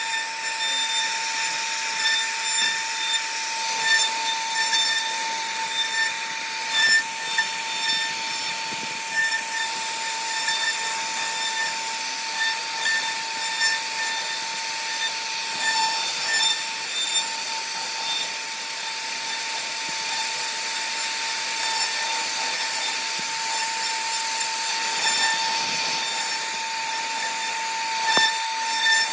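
CNC router spindle whining at a steady high pitch while its bit cuts into wood, with brief louder surges every second or two as the cut bites.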